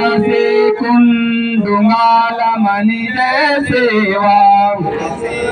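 A man chanting a devotional prayer in a sung style, holding long notes.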